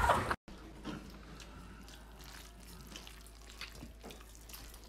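A burst of laughter cuts off abruptly, followed by quiet kitchen room tone with a few faint clinks of a fork on a plate.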